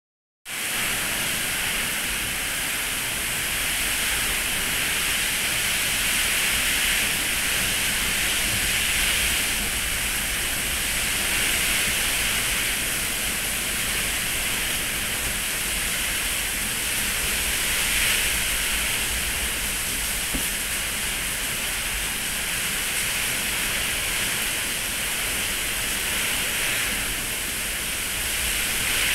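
Heavy hurricane rain and gusting wind: a steady, loud hiss that swells now and then with the gusts.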